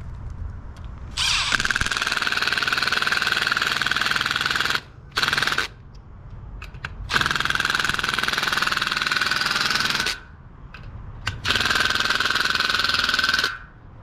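Milwaukee cordless impact driver running in four goes, a steady whine with a rapid hammering rattle, as it backs out the bolts holding the fan guard to the condenser fan motor. The runs start about a second in, with a short one near five seconds, a longer one from about seven to ten seconds, and a last one near the end.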